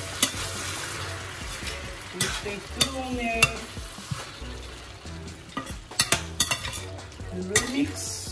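A slotted metal spatula stirring vegetables and small dried fish in a stainless-steel pan, scraping and clicking against the pan at irregular intervals over a steady sizzle from the pan.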